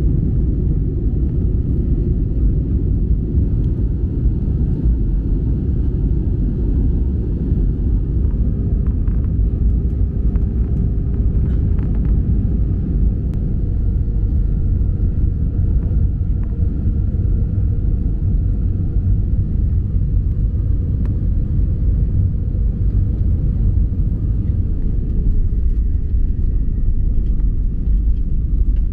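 Airbus A320 cabin noise heard from inside the cabin: a steady low rumble of jet engines and airflow.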